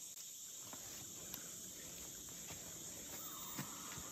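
Steady high-pitched chorus of rainforest insects, crickets among them, with a few faint ticks.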